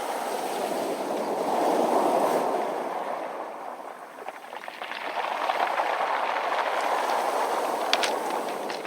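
Sea waves washing onto a round-pebble beach, swelling twice, with a few sharp clicks of pebbles knocking together near the end.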